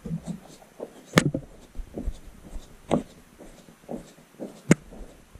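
Long screwdriver driving a screw into a 3D-printed side mount: scattered small creaks and knocks as it turns, with two sharp clicks, one about a second in and one near the end.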